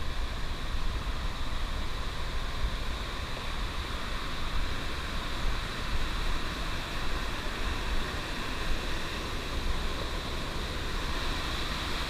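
A swift, fast-flowing forest river rushing over rocks, a steady sound of white water.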